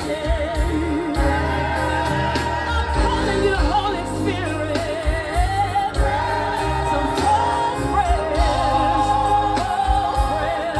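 Live gospel music: a singer holds long notes with a wide vibrato over a band with a steady bass line.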